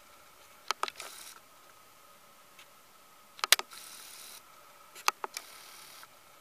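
Camera autofocus hunting: small sharp clicks in three quick clusters, the strongest about three and a half seconds in, several followed by a brief whirring hiss, over a faint steady high whine.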